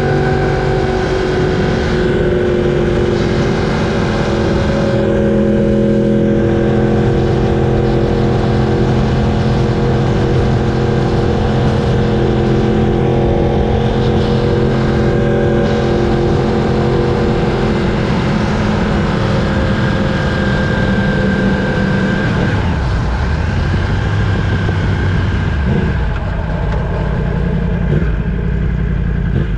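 Yamaha R1's crossplane inline-four engine holding steady revs under way. About three-quarters of the way through, the revs drop and waver as the bike slows.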